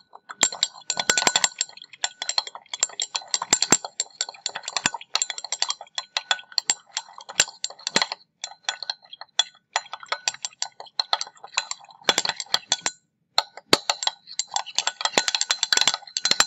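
Glass stir rod clinking rapidly and unevenly against the inside of a Pyrex glass beaker as salt is stirred into water, each tap ringing briefly. The stirring pauses for a moment about 13 seconds in, then carries on.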